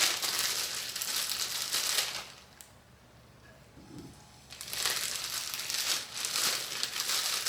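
Crinkling plastic packaging, in two spells of about two to three seconds each with a quiet gap between, as shredded cheddar cheese is measured out.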